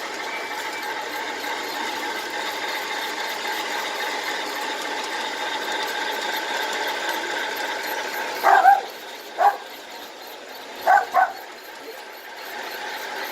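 Dog barking four times in the second half, two of the barks close together. Under it, a steady hum with held tones from a G-scale model locomotive running with DCC sound.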